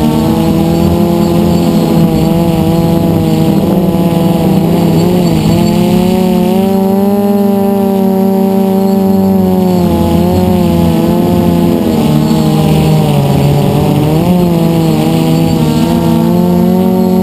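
Electric motors and propellers of a DJI F450 quadcopter in flight, heard from on board: a loud, steady whine whose pitch dips and rises several times as the motors speed up and slow down.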